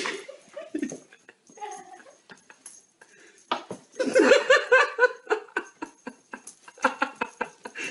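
A person laughing in short repeated bursts, strongest from about four seconds in, over scattered thumps and scrabbles as a ginger cat tumbles and spins on a hard floor.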